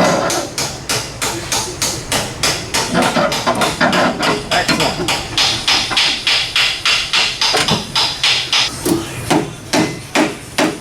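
Hammer blows struck in a steady rapid series, about four a second, slowing slightly over the last couple of seconds and stopping near the end.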